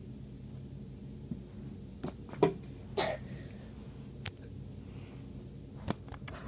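A few short knocks and clicks from toys being picked up and moved by hand, about five in all, the loudest around two and a half seconds in, over a steady low hum.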